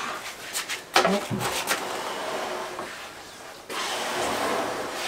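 Heavy marble slab scraping as it is pushed over rough wooden log beams: a continuous rubbing scrape with a few knocks about a second in, growing louder near the end.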